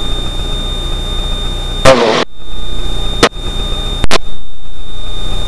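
Steady drone of the Extra 300L's Lycoming six-cylinder engine heard inside the cockpit during the climb. A brief voice-like sound comes about two seconds in, and two sharp clicks follow a little over three and four seconds in.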